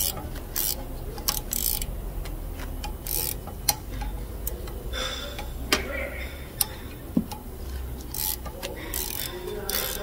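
Hand tools working a rear brake caliper bolt: a wrench on the bolt and pliers holding the slide pin, making irregular metallic clicks and several short rattles.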